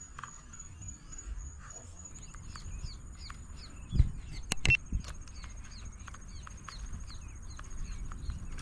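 A bird calling in a quick series of short falling chirps, two or three a second, over a thin steady high whine, with a couple of sharp clicks about four to five seconds in.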